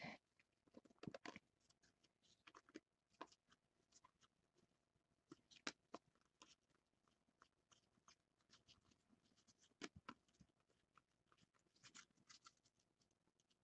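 Faint, scattered clicks and soft rustles of cardboard trading cards being handled and flipped through, with a few sharper card snaps among them.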